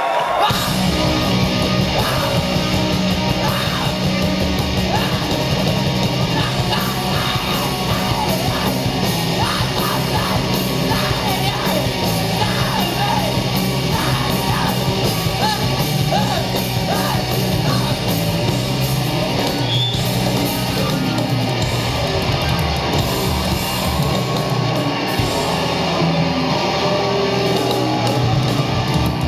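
Rock band playing live at full volume, with distorted electric guitars, bass and drums and a singer. It kicks in abruptly right at the start and stays steady.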